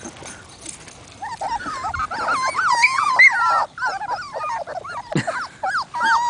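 Labrador Retriever puppies whining for attention: high, wavering whines that start about a second in and run on almost without a break.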